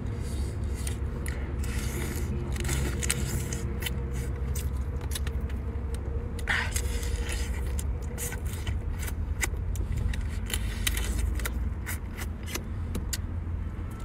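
Cooked crab being pulled apart and eaten by hand: short cracks, clicks and scrapes of shell and claw, over a steady low hum.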